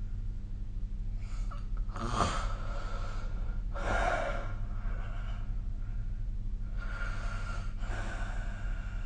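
A sleeping person snoring: rough, noisy breaths in and out, coming in two rounds, the loudest about four seconds in. A steady low hum runs underneath.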